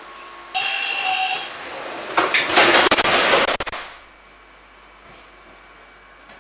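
Pneumatic sliding doors of a Siemens-AEG Athens Metro Line 1 car working on compressed air. A sudden hiss with a steady whistle-like tone lasts about a second. Then comes a louder rush of air with rattling and clicks of the door mechanism, which cuts off abruptly a little before four seconds in.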